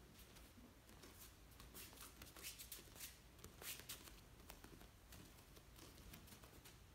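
Near silence: room tone with a few faint soft ticks and rustles in the middle.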